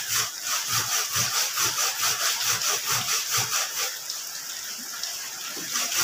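Fresh coconut flesh being grated by hand on a long metal grater, rasping strokes about two to three a second. The strokes ease off about four seconds in and pick up again near the end.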